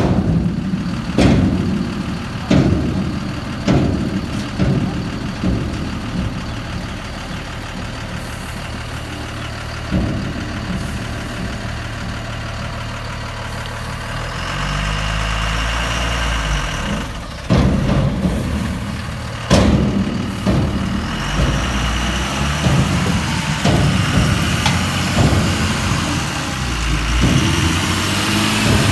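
Tata 1618 4x4 tipper's diesel engine idling, with a string of sharp knocks about every second in the first few seconds. About halfway through the engine is revved, rising in pitch as it pulls the truck through mud, and more sharp knocks follow.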